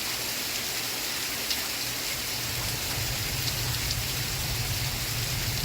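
Steady rain falling, an even hiss of rain on a surface with a few sharper drop ticks. A low hum comes in about halfway through.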